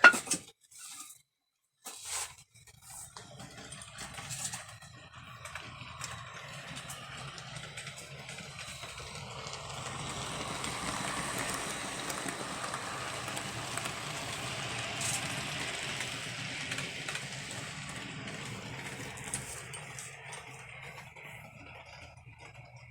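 HO scale model train running on the layout: a steady motor hum and wheel-on-rail rumble that grows louder, peaks around the middle and fades away as it passes. A sharp click at the very start.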